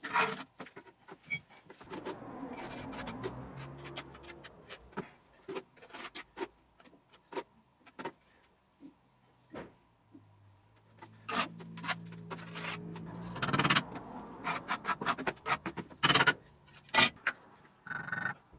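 Bricklaying on a brick chimney: a trowel scraping and spreading mortar, with repeated sharp taps and knocks as bricks are set and tapped into place. A low hum comes and goes twice.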